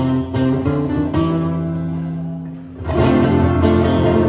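Live acoustic instrumental passage on two acoustic guitars and accordion. A held chord fades away, then the band comes back in with full strumming about three seconds in.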